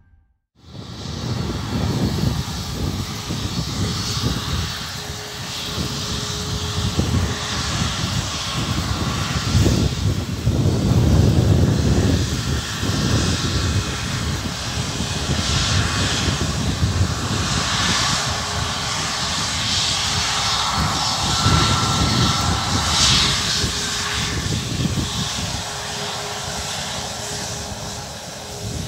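Boeing 737 MAX 8 jet engines (CFM LEAP-1B) running at low thrust as the airliner moves along the runway. It makes a continuous rumble that swells and fades, loudest about ten seconds in.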